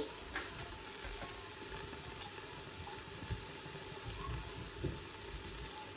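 Faint steady background hiss of room tone, with a few soft clicks.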